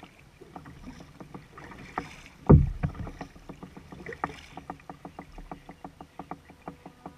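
Kayak being paddled with a double-bladed paddle on calm water: paddle strokes with a loud low thump about two and a half seconds in, among many short light clicks that come quicker and more evenly in the second half.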